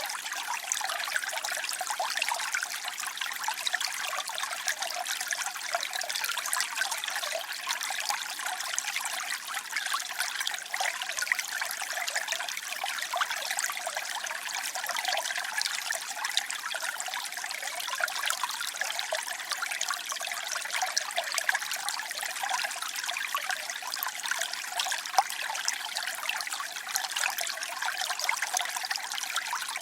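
Water trickling and splashing steadily, a bright, even hiss of many small splashes with almost no low rumble.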